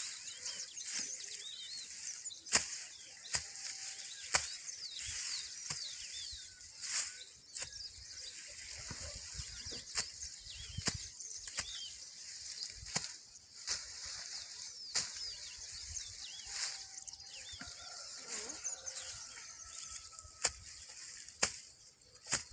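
Panga (machete) slashing through natural grass: short, sharp swishing cuts at an irregular pace, roughly one a second.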